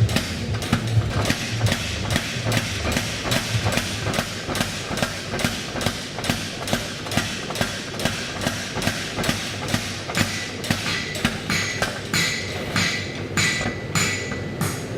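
Steady hammer blows drawing out a damascus steel billet, about three strikes a second. Toward the end each strike rings with a metallic ping.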